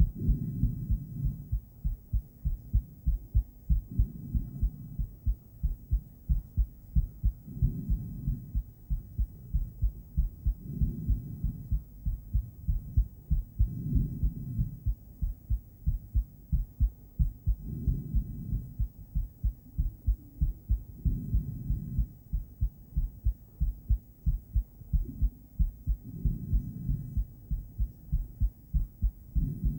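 A woman's heartbeat picked up by a handheld ultrasonic Doppler device: a steady run of low pulsing beats, with a broader, louder swell in the sound every three to four seconds.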